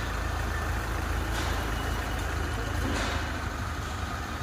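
Heavy diesel engine running steadily with a low rumble, with short hisses about one and a half seconds apart.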